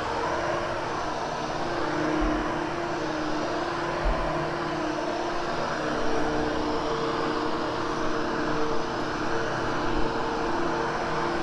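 Hoover HushTone vacuum cleaner running steadily as it is pushed over carpet, its motor hum shifting slightly in pitch, with a few low thumps.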